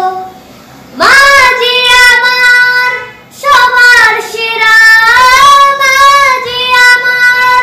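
A boy singing with no accompaniment: two long held phrases with vibrato, the first starting about a second in, the second after a short breath about three seconds later.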